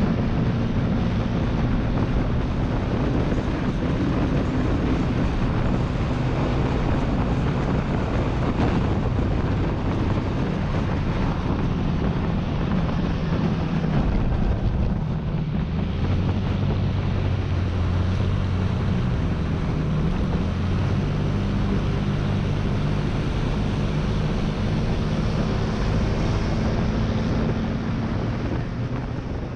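Motor scooter engine running steadily, its pitch shifting a little partway through, with wind noise on the microphone.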